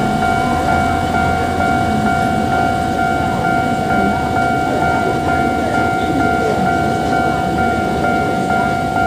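Railroad crossing warning signal ringing continuously: an electronic ding-ding that repeats at an even pace over a held tone. Underneath is a steady low rumble of a narrow-gauge sugar train going over the crossing.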